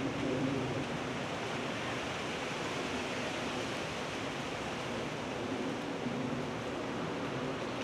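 Steady, even rushing background noise with no distinct bird calls.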